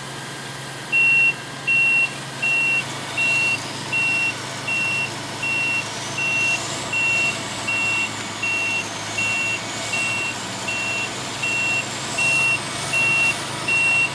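Truck's reverse warning alarm starting about a second in and beeping evenly, about four beeps every three seconds, over a running diesel engine. A high whine rises a few seconds in and wavers under the beeps.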